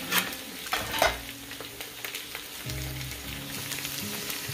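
Sliced red potatoes slid off a metal bench scraper into hot olive oil in a Ninja Foodi PossibleCooker pot, with a couple of sharp clatters in the first second, then a steady sizzle as they fry.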